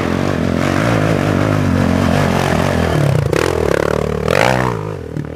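Racing quad (ATV) engine running and revving, its pitch rising and falling with the throttle, climbing sharply about four seconds in before dropping off near the end.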